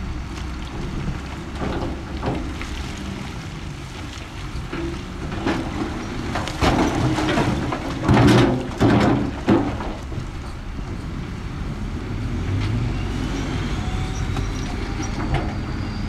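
Heavy earthmoving machinery running with a steady low engine rumble. About halfway through there is a cluster of louder clanks and clatters, loudest a few seconds in from the middle.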